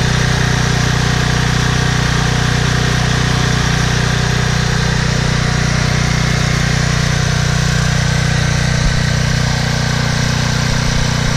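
Troy-Bilt 8000-watt generator's 15 hp Briggs & Stratton OHV engine running steadily, its even drone unchanged throughout.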